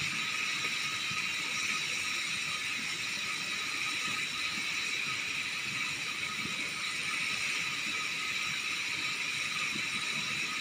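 Steady sizzling hiss of long beans stir-frying in a wok with a little water added.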